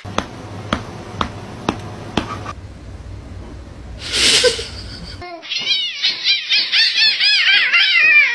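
A few sharp slaps about twice a second at first, then a short harsh noise burst around four seconds in. From about five seconds in, cats yowl over and over in quick rising-and-falling calls, the loudest sound here.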